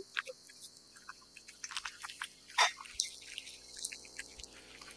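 A cat eating wet cat food: irregular wet smacking, licking and chewing clicks, with a louder smack about two and a half seconds in.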